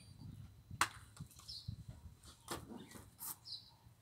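Plastic quad roller skates rolling on a tiled patio: a low rumble with a few sharp clacks, the loudest about a second in.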